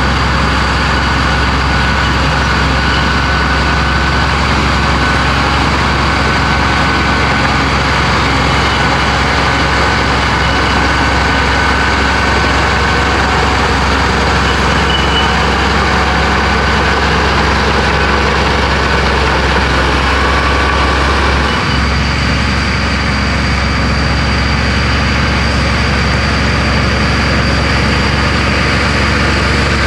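Komatsu bulldozer's diesel engine running steadily under work, with a brief dip about two-thirds of the way through.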